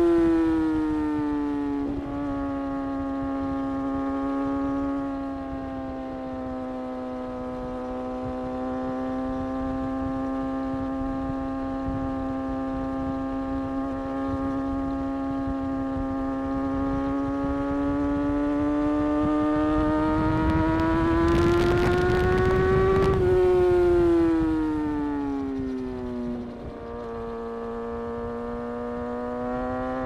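A Kawasaki ZX-6R's inline-four engine running under way at high revs. Its note drops at first, holds, and climbs slowly. About three-quarters through the throttle closes and the pitch falls, then it rises again near the end. Just before that fall comes a brief rush of wind noise.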